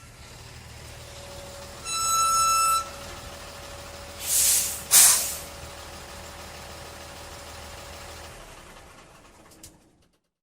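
Ten-wheeler truck's engine running, with one horn blast about two seconds in, then two sharp air-brake hisses close together around the middle. The engine then runs on and fades out near the end.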